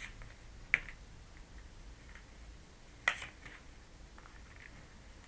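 Tarot cards handled on a table: two sharp card snaps, one under a second in and another about three seconds in, with faint rustling and ticks between.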